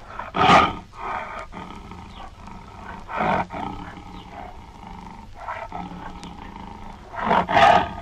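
Tiger roaring three times: about half a second in, a little past three seconds, and near the end. The first and last roars are the loudest.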